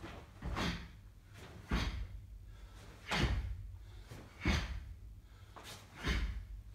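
About five sharp snaps with low thuds, spaced a second or so apart: a karate gi cracking with each kick and punch of a kata, with bare feet landing on a carpeted floor.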